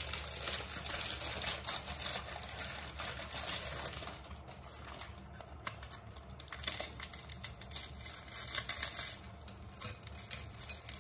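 Petit beurre biscuits being snapped and crumbled by hand, a dense crackling of breaking biscuit with small pieces pattering down, louder in the first few seconds and then sparser snaps.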